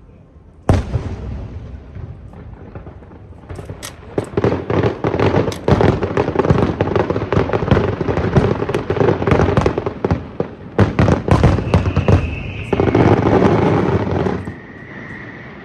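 Aerial fireworks: one loud shell burst about a second in, then from about four seconds a dense barrage of bangs and crackling that dies away near the end. A high steady whistle sounds over the last few seconds, dipping slightly in pitch.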